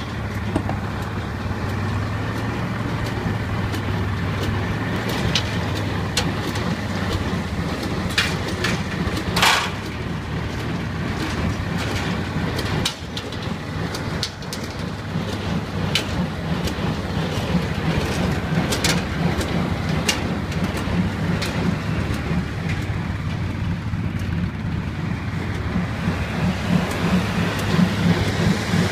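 Tractor engine and a Welger AP 630 small square baler running together while baling hay: a steady engine drone under the baler's rhythmic working beat, with scattered sharp clicks and knocks from the machinery.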